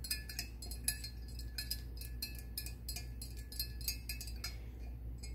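A stir stick clinking against the inside of a glass jar while liquid is stirred: quick, light ticks about three a second, with a faint glassy ring. The ticks stop about four and a half seconds in.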